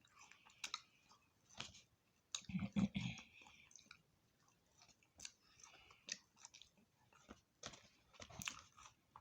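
Close-miked chewing and biting of fried food (seasoned French fries and chicken): wet mouth clicks and soft crunches, loudest about two and a half seconds in.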